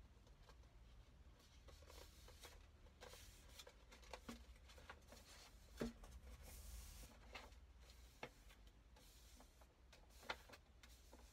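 Faint rustling and handling of paper as a purple paper book jacket is pressed and folded by hand, with two sharp taps, about six and ten seconds in.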